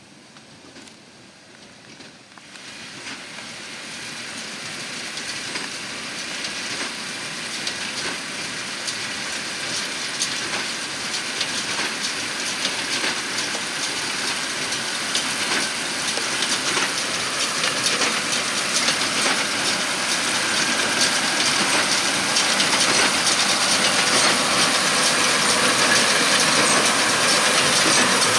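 Fendt 724 Vario tractor and Massey Ferguson 2170 large square baler working straw, their engine and the baler's clattering mechanism growing steadily louder as they approach.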